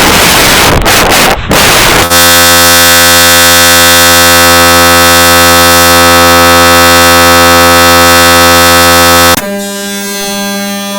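Heavily effect-processed, clipped audio: about two seconds of harsh distorted static, then a loud steady buzzing drone of many stacked tones that holds for about seven seconds and cuts off abruptly, followed by quieter electronic music-like tones.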